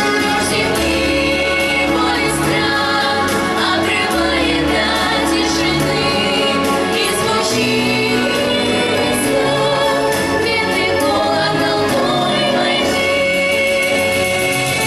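A children's vocal group singing together over instrumental accompaniment, with sustained bass notes underneath.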